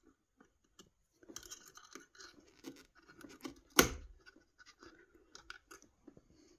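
Hex key and hands working at a roller chain and its tensioner: small scrapes and light metallic clicks, with one sharp click a little under four seconds in.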